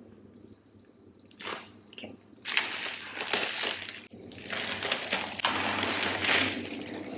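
Scissors cutting through plastic packing wrap, then the wrap crinkling and rustling as it is pulled open. It starts after a quiet second and goes on in long, noisy stretches.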